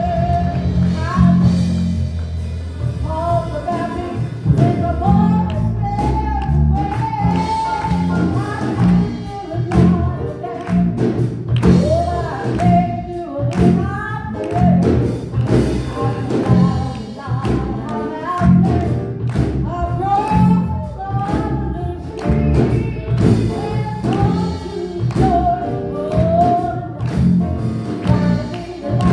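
Voices singing a gospel song together with a backing band, bass and drums keeping a steady beat.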